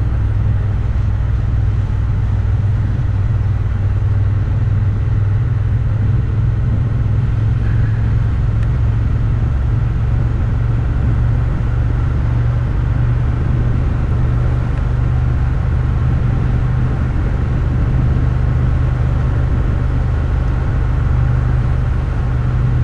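Motorcycle engine running at a steady speed on the move, a constant low drone under wind and road noise, with no changes in revs.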